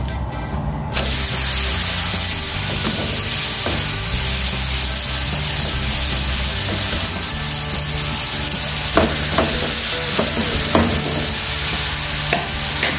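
Seasoned thin beef steaks sizzling as they go into a hot frying pan. The sizzle starts suddenly about a second in and stays steady, with a few light knocks of a utensil near the end.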